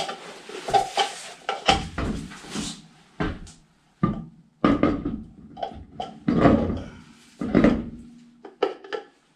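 A car wheel and tyre being lifted and fitted onto a front hub's wheel studs: a series of irregular heavy thuds and knocks, with scrapes and rubbing in between, as the rim bumps and slides into place.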